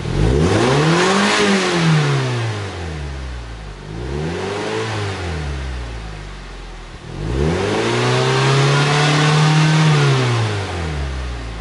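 2015 Mazda MX-5 Miata (NC) 2.0-litre four-cylinder revved at a standstill through a RoadsterSport Super-Q aftermarket muffler, heard at the tailpipe. Three free-revs: a quick one, a smaller blip, then a longer rev held high for about two seconds before dropping back to idle.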